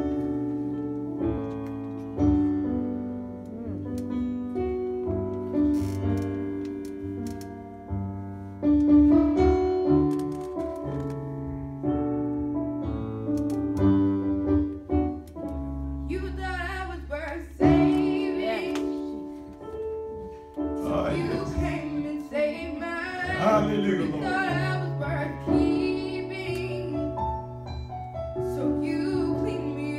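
Keyboard playing slow, held piano chords as an introduction; about halfway through, a girl's voice comes in singing over the accompaniment.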